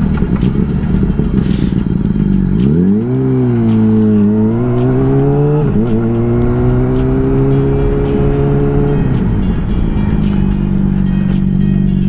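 Honda CBR600RR inline-four sport-bike engine under way. It revs up sharply about three seconds in, the pitch breaks briefly at gear changes, then climbs steadily. Near the end it drops back to a steady lower drone as the throttle eases.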